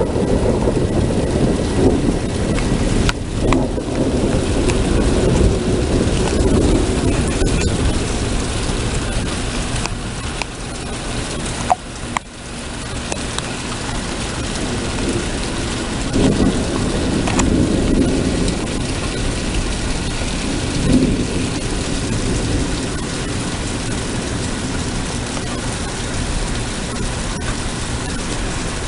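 Thunderstorm with steady heavy rain, and low rolling thunder that swells in the first few seconds and again past the middle.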